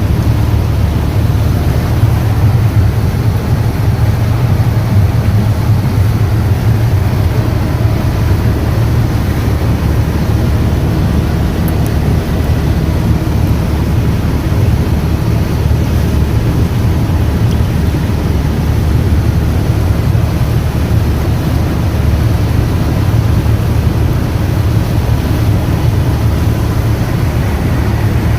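Boat engine running steadily, a low, even drone with no change in speed.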